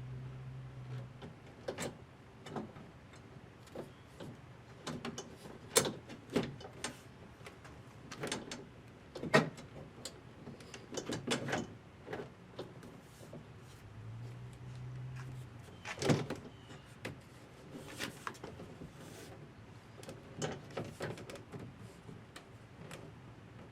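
Scattered clicks and knocks of door-panel parts being handled and fitted on a pickup truck door. A power window motor hums briefly twice, at the start and again partway through.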